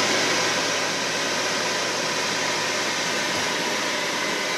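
Ninja Foodi Grill running in air-fry mode: its fan blows a steady rush of air over a low, even hum.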